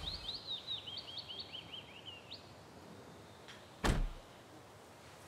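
A car door shutting with a single solid thud about four seconds in. Before it, small birds chirp in a quick run of rising and falling notes.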